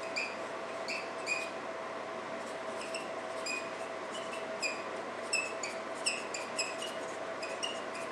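Marker pen squeaking on a whiteboard while writing: short, irregular high squeaks, a couple each second, as each stroke is drawn.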